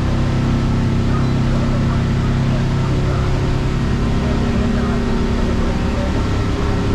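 Engine of a Duckworth 260 boat running steadily under way, a constant low hum with no change in pitch.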